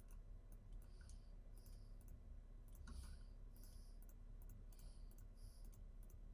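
Faint computer mouse clicks, a quick irregular series of a couple a second, often in press-and-release pairs, as edges are picked one after another to trim them.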